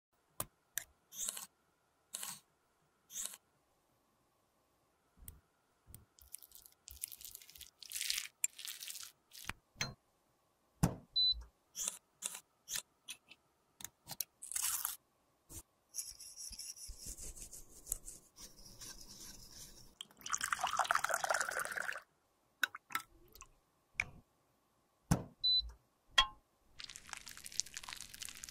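Close-up handling of a lipstick tube: a series of short, sharp clicks and taps from the case, then longer stretches of scraping as the old lipstick is dug out of the tube with a plastic spatula. The loudest scraping comes near the three-quarter mark.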